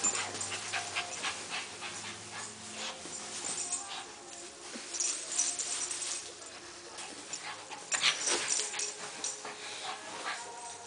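Small dog play-fighting a large plush toy: the dog's vocal sounds mixed with quick scuffling and rubbing of fur against plush, in short, busy bursts, loudest about eight seconds in.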